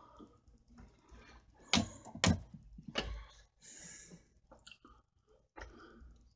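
Two sharp knocks about half a second apart, then rustling and a few smaller clicks and knocks, close to the microphone.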